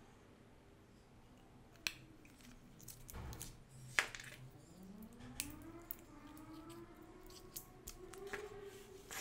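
Light clicks and crinkles of hands handling small plastic parts and peeling the foil-and-paper wrapper off a stick of epoxy putty, the sharpest click about four seconds in. A faint tone rises and wavers underneath from about five seconds in.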